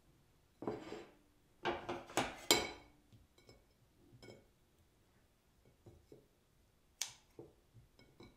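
Kitchen scissors and sausages clinking and tapping on a ceramic plate as the sausage links are cut apart: a cluster of ringing clinks in the first three seconds, a few soft ticks, then one sharp click about seven seconds in.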